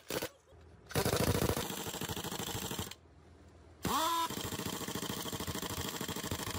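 Pneumatic impact wrench hammering on a heavy truck's wheel nuts in two runs, about two and three seconds long. The second run opens with a short rising whine as the tool spins up.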